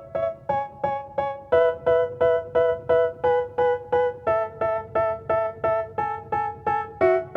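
Background music: a piano-like keyboard playing short repeated chords, about three a second, the chord changing every few strikes.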